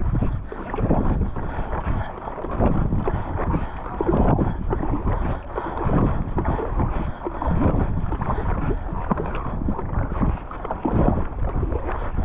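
Fast kayak paddle strokes, the Werner Cyprus paddle's blades splashing into and pulling through the water about once a second, with wind rumbling on the microphone.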